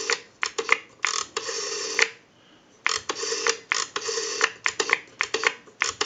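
The rotary dial of an Automatic Electric candlestick telephone is being dialed through several digits in a row. Each time the dial spins back it gives a short burst of clicking whir, with brief pauses between digits.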